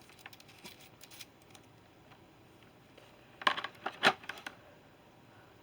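Small tools and parts of a soldering iron kit clicking and clattering as they are handled and fitted into the kit's case: a few light clicks, then a short run of louder clicks and rattles about three and a half seconds in.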